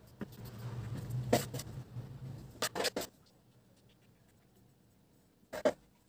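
Metal palette knife scraping whipped cream along the side of a cake on a cake-decorating turntable, with a low rubbing rumble early on. Sharp clicks of the knife knocking: one about a second and a half in, three in quick succession near three seconds, and one more near the end.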